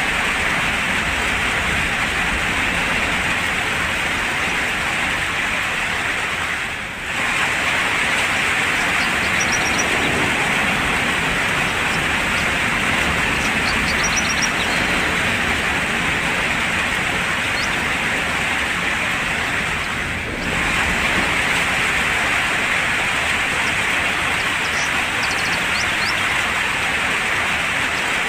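Steady heavy rain falling, a dense even hiss, with faint short bird chirps now and then. The hiss dips briefly twice, about a quarter of the way in and again about two-thirds in.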